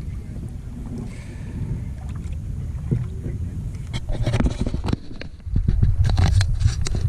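Kayak on open water, with wind rumbling on the action camera's microphone. From about four seconds in comes a run of short sharp splashing and knocking sounds, and the wind grows louder about halfway through.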